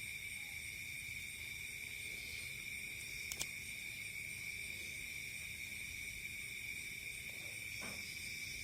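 Insects chirring steadily in several high, unbroken tones, with a single sharp click about three and a half seconds in.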